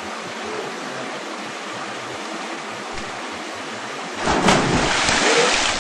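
Steady rushing of a waterfall. About four seconds in, a louder burst of splashing water lasting about a second and a half: water splashed at the camera holder.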